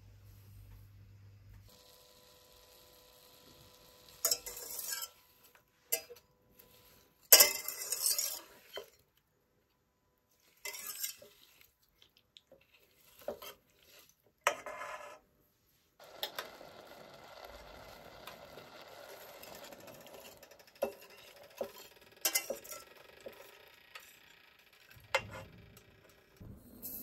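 Wire whisk stirring, scraping and clinking against a stainless-steel pot of heating raspberries, with several sharp metal clatters in the first half. A soft steady sizzle comes in the middle.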